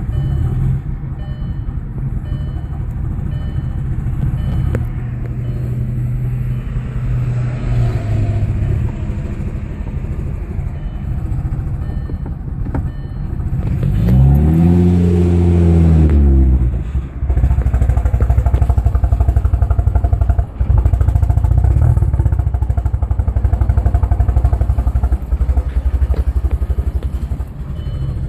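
Audi B5 S4's 2.7-litre twin-turbo V6 idling with an uneven, pulsing note, which the owner takes for a cold-start misfire. About halfway through, the revs rise and fall once in a short blip, and then it settles back to idle.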